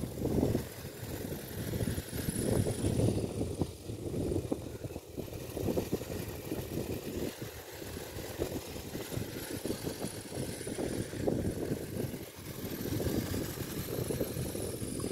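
Wind buffeting the microphone: a low rumble that rises and falls in gusts.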